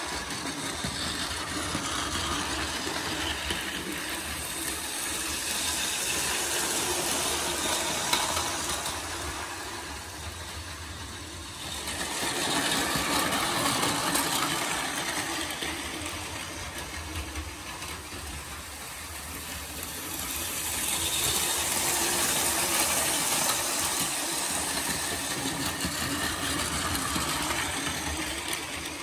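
Plarail Kintetsu 80000 series Hinotori toy train running on plastic track: its small battery motor whirs and its plastic wheels and couplers rattle. The noise grows louder twice as the cars pass close.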